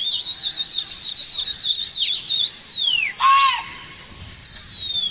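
A loud, high, warbling whistle that wavers rapidly up and down. About three seconds in it glides down and breaks off, then starts again with a rising sweep.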